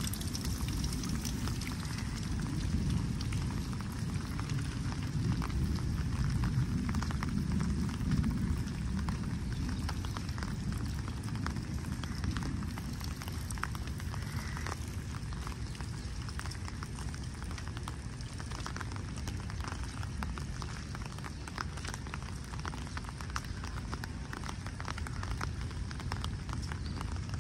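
Steady rain, with many small drop ticks over a low rumble.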